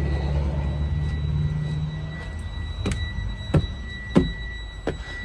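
A low rumble that fades out about two seconds in, then a series of sharp knocks and clunks, about five of them over the next three seconds, with a faint steady high-pitched tone underneath.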